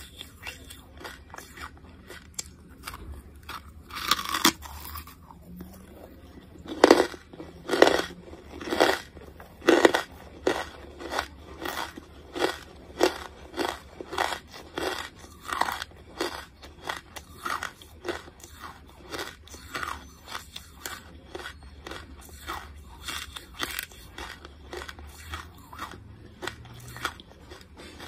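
Close-up chewing of a mouthful of charcoal: a run of crunches, about one to two a second. They are loudest and sharpest from about seven seconds in, then ease into steadier, softer chewing.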